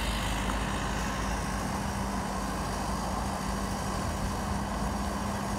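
Mini excavator's diesel engine running steadily with an even hum while the arm and bucket dig.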